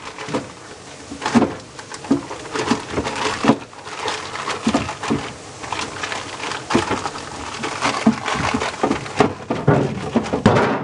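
Irregular clatter of many quick knocks and clicks as objects are handled and moved about.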